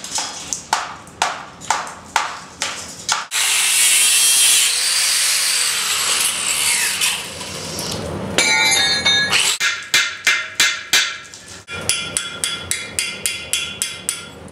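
Ceramic shell investment being hammered off a freshly cast bronze: a run of sharp hand-tool strikes at about three a second, with a stretch of loud, steady hissing noise in the middle. Quicker strikes follow, and rapid tapping near the end.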